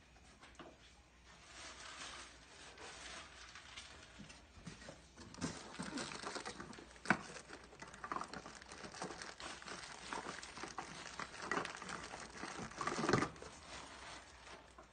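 Hands rummaging through goods in a cardboard shipping box: irregular rustling and crinkling of plastic-wrapped items and cardboard with light knocks. There is a sharper click about halfway through and a louder rustle near the end.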